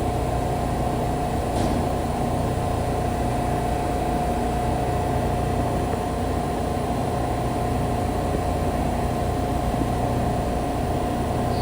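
Subway train standing in the station, giving off a steady electrical hum: one held tone over a low rumble.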